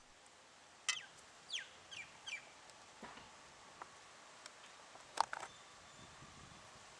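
A few faint, sharp metallic clicks, the clearest about a second in and about five seconds in, from the nuts being taken off a chainsaw's chain brake cover. Birds call in the background, with a run of short falling chirps about two seconds in.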